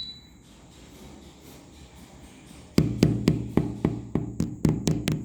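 From about three seconds in, a quick run of about ten sharp knocks, roughly four a second, each with a low thud.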